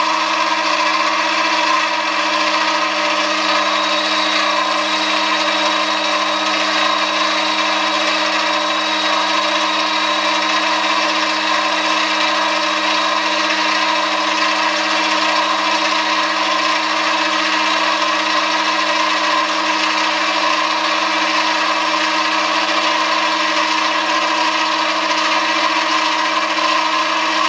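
Foreman TB1835 mini lathe running steadily with a constant multi-tone whine while its tool makes a finishing facing cut across the end of the workpiece, fed by hand in one uninterrupted pass.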